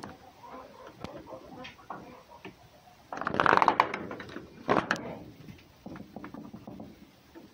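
Close face-off between a fox and a cat: small scratching and rustling clicks on wood and straw, broken about three seconds in by a loud, harsh, rasping outburst lasting about a second, then a shorter one near five seconds, as the cat drops back from the fox's box.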